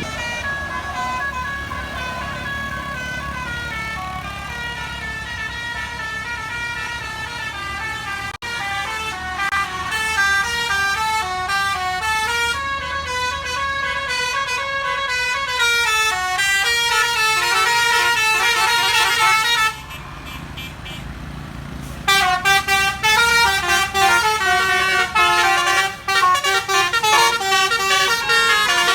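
Telolet basuri bus horn playing a quick, stepped melody of many notes, with a bus engine running beneath in the first half. About twenty seconds in the horn drops away for a couple of seconds, then comes back louder in short, choppy notes.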